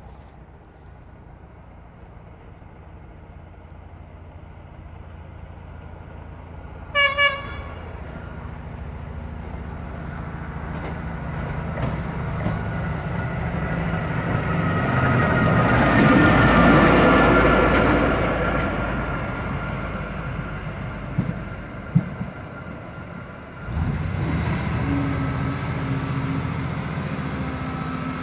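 Geismar VMT rail water jetter approaching with its diesel engine running. It sounds two short horn toots about seven seconds in, grows louder to a peak as it passes close by around the middle, then fades. After a sudden change near the end, a steady low tone carries on.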